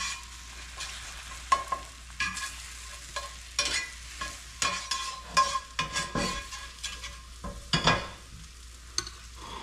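Egg frying in butter in a cast-iron skillet, sizzling steadily, while a metal fork stirs and scrapes it, with irregular clinks and scrapes of the fork against the pan.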